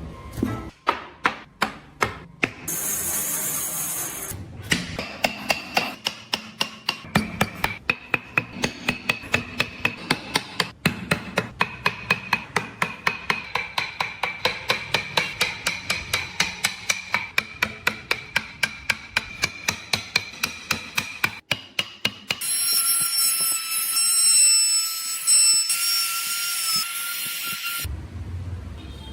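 Hammer tapping a chisel into wood in a fast, even rhythm of about four blows a second, each knock ringing slightly. A short hiss comes before the tapping, and a high, steady power-tool whine takes over for about five seconds near the end.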